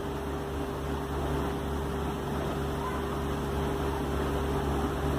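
Steady low mechanical hum with a faint constant tone above it, unchanging throughout.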